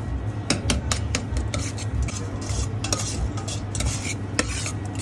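A metal spoon stirring chopped raw beef with oil and shallots in a stainless steel mixing bowl, clinking and scraping against the bowl in quick, irregular taps.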